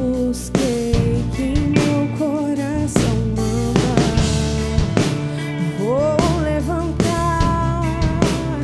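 A band playing a song: a drum kit and bass under a sustained melody line that glides in pitch.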